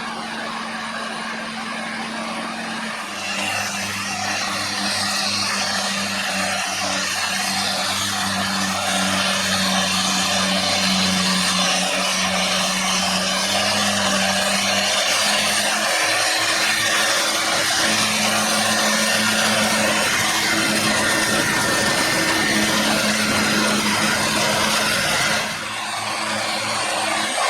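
Ford New Holland 8340 tractor engine working under load while the trailed Reco Mengele SH40N forager chops and blows grass, a steady rushing, whirring noise over the engine drone. It gets louder a few seconds in and dips briefly near the end.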